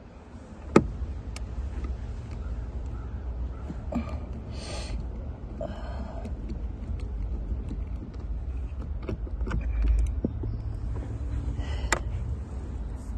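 Scattered clicks and knocks of a hand tool and screws as the blower motor screws are worked out under a car's dashboard, with a brief rustle about four seconds in, over a low steady rumble.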